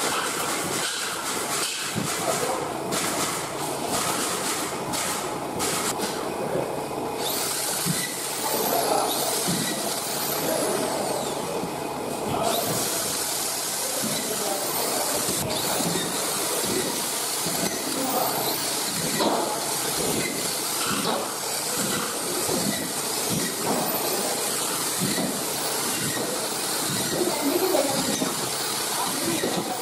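A steady hiss of background noise, with a screw gun driving drywall screws into a gypsum board on steel studs in short, repeated bursts through the later part.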